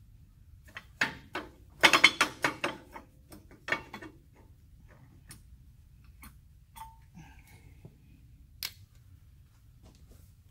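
Metal LS3 motor mount bracket clinking and knocking against the engine block and frame as it is trial-fitted by hand: a quick run of ringing metallic clanks about two seconds in, then scattered lighter clicks and a single short ping.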